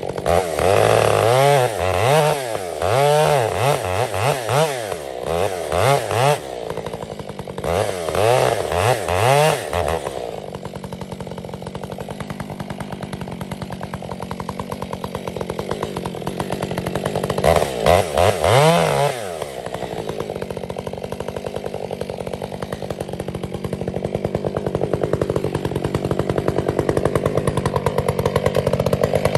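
Two-stroke chainsaw revved up and down several times in quick succession over the first ten seconds, then dropping back to idle. It revs once more at about eighteen seconds and idles again, a little louder toward the end.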